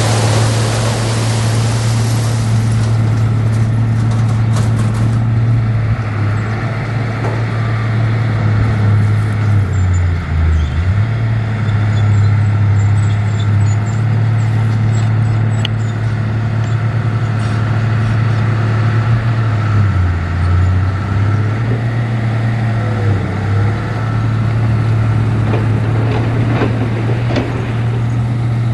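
Heavy diesel earthmoving machinery running steadily with a deep engine drone, its pitch dipping briefly three times as the engine takes load. A loud hiss at the start fades out within the first two seconds.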